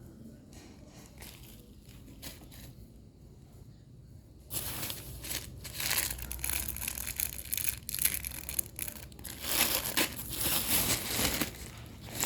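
Packaging being handled and opened: faint rustling at first, then from about four and a half seconds in a much louder, continuous crinkling and crackling of wrapping material.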